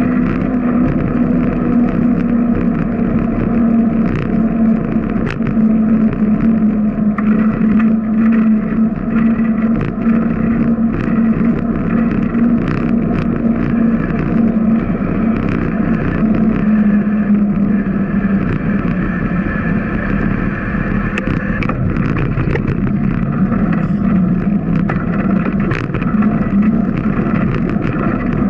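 Bicycle riding noise picked up by a bike-mounted camera: a steady droning hum that sinks a little in pitch as the bike slows, over a rushing road noise, with scattered short knocks.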